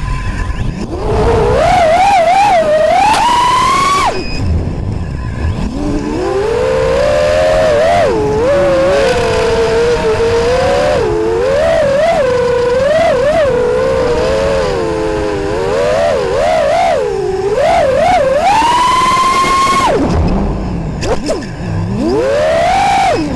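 Quadcopter's four Emax RS2205S 2300KV brushless motors spinning Racerstar 5048 three-blade props, a whine whose pitch rises and falls with the throttle. It climbs steeply and then cuts off suddenly twice, about 4 s and 20 s in, before picking up again, over wind rushing across the onboard microphone.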